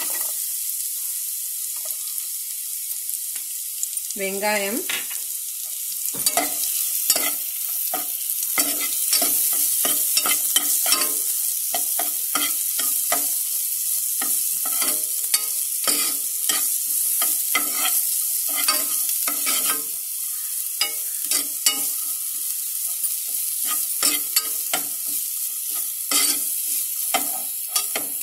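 Grated garlic and chopped onion frying in melted butter with a steady sizzle, while a steel spoon stirs and scrapes against the pan, making many short scrapes and taps.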